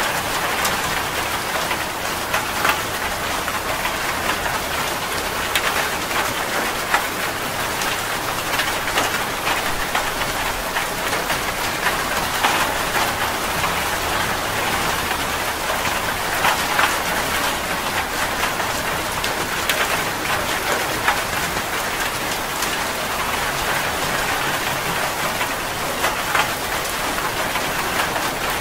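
Steady rain falling on a surface: a dense, even hiss with frequent louder spatters of single drops.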